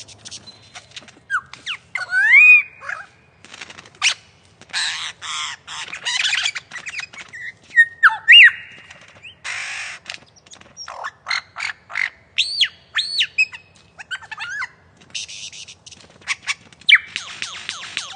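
A lyrebird singing a mimicry medley: loud whistles that sweep up and down in pitch, mixed with harsh rasping blocks of noise and rapid runs of clicks, each phrase different from the last.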